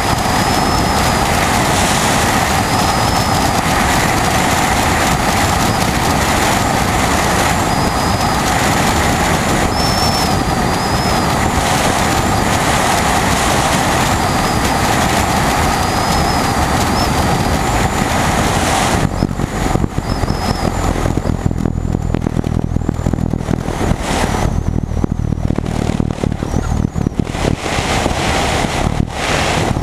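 Single-engine light aircraft's propeller engine and rushing airflow on approach, heard from a camera on the tail. About two-thirds through, the engine note drops sharply as power comes off for landing, leaving a lower, uneven rumble as the plane rolls along the runway.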